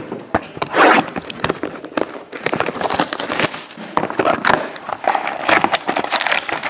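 Trading card packs being handled: foil pack wrappers crinkling and tearing open, and a stack of cards being flicked through. A dense run of rustles and sharp clicks.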